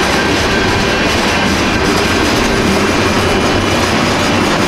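Cars of a BNSF manifest freight train rolling past at a grade crossing: steady, loud wheel-on-rail noise that keeps up without a break.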